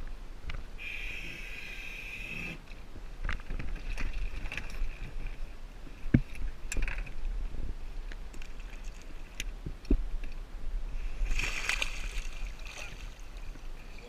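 Sea water lapping and sloshing against the side of an inflatable boat, with scattered knocks and splashes and two longer hissing splashes, about a second in and near the end.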